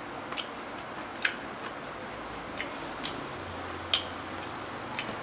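Eating a crispy fried bread-coated cheese ball: scattered sharp crunches and mouth clicks over a steady hiss, the loudest about four seconds in as it is bitten.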